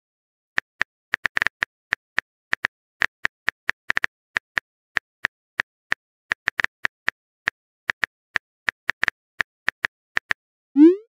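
Phone keyboard typing sound: a run of light, sharp taps at an uneven pace of about three to four a second as a text message is typed. They stop near the end, and a short rising pop follows as the message is sent.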